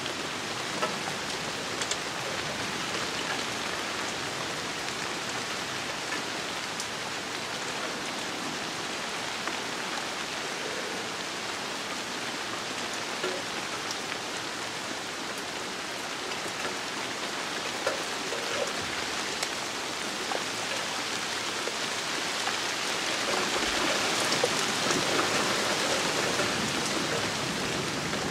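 Steady rain falling on leafy garden bushes, getting heavier near the end.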